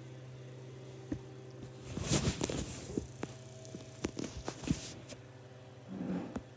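Rustling with a flurry of sharp clicks and taps for about three seconds in the middle, then a brief shorter rustle, over a steady low hum.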